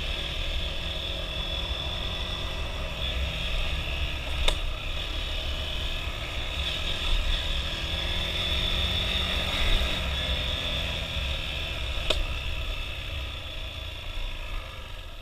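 Motorcycle engine running steadily over a low rumble, with two sharp clicks several seconds apart, fading near the end.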